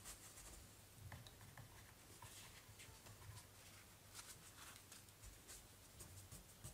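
Near silence with faint scratches and soft taps of a narrow watercolour brush stroking on paper.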